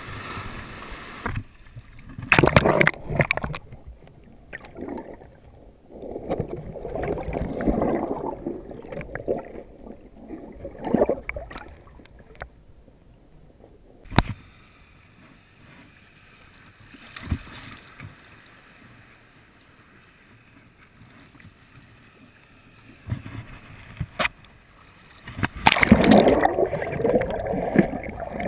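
Water sloshing and splashing around a waterproof camera housing held at the surface, in irregular surges with quieter gurgling stretches between and a few sharp clicks.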